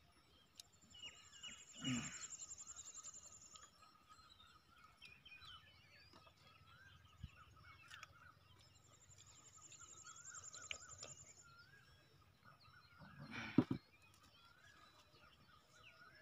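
Faint rural field ambience: a high insect trill buzzing twice, for about three seconds each time, over faint bird calls. Two brief soft noises come about two seconds in and near the end.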